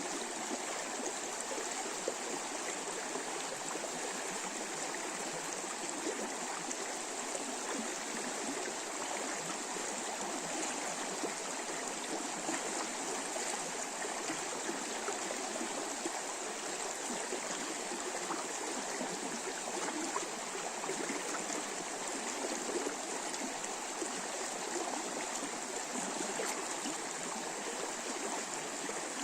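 River water rushing over shallow rapids in a steady, unbroken flow.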